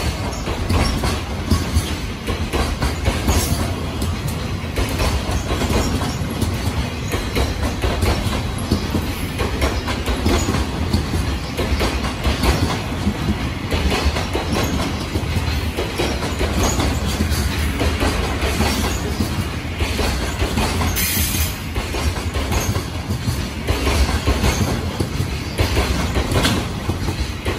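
Container flat wagons of a freight train rolling past at close range: a steady low rumble with the wheels knocking over the rail joints again and again.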